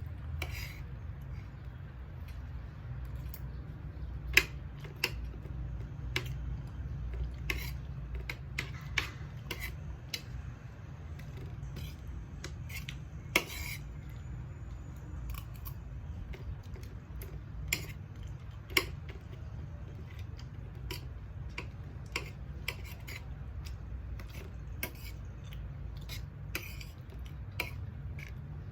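Cutlery clinking and scraping on a plate during a meal, irregular sharp clicks every second or so, over a steady low hum.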